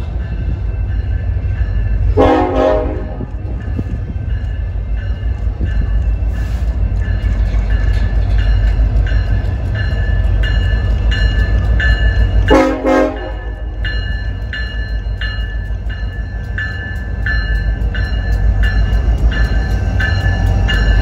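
Passing double-stack freight train rumbling steadily, while an approaching Union Pacific SD70ACe locomotive sounds two short horn blasts, about two seconds in and again about twelve seconds in. A regular high ringing beat, just under two strokes a second, runs under the rumble in the second half.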